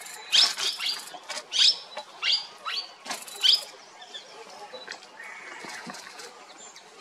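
A bird calling: a quick run of short, sharp rising notes, about eight in the first three and a half seconds, then only softer calls.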